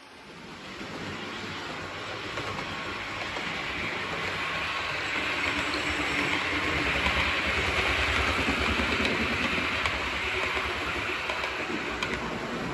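Hornby OO gauge Class 370 APT model train running on the track, its wheels and mechanism rattling along the rails. It grows louder about a second in, is loudest as the coaches pass close and eases near the end.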